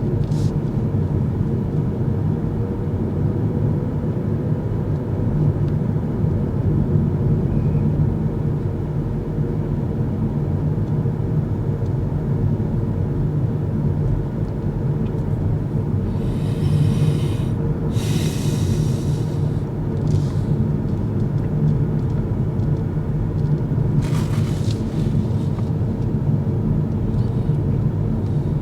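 Kia EV6 electric car driving, heard from inside the cabin: a steady low rumble of road and tyre noise with no engine sound. Brief hissing sounds come twice, about two-thirds of the way through and again a few seconds later.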